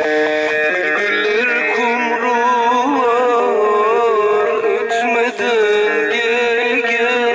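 Middle Eastern-style music played from a portable speaker. Held chords give way, about a second in, to a wavering, ornamented melody line.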